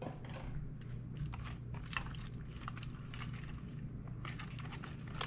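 Silicone whisk stirring a thick, wet mix of rice, broccoli and cream soup in a bowl: irregular soft squelching strokes, over a steady low hum.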